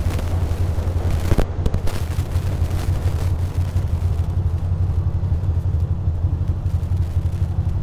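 2006 Ducati Monster 620's air-cooled V-twin idling in stopped traffic, a steady low throb with no revving. A couple of brief clicks come about a second and a half in.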